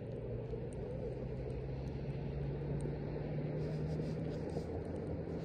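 An engine running steadily, a low droning hum that rises slightly in pitch about two seconds in and holds.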